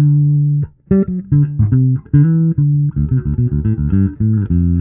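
Fodera Emperor Deluxe five-string electric bass being played: a held note, a brief gap, then a quick run of plucked notes, ending on a low note that rings on.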